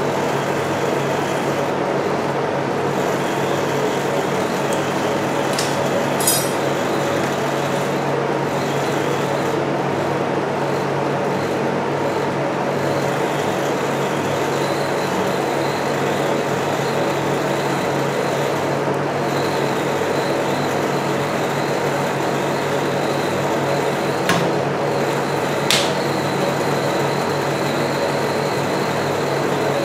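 Steady hum and whir of a rolled ice cream machine's refrigerated cold plate running. There are three brief light clicks: one about six seconds in and two near the end.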